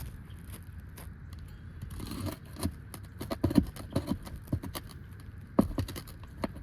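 Irregular metallic clicks, knocks and scrapes of a roofing pry bar working nails free from asphalt shingles, the loudest knocks about three and a half and five and a half seconds in.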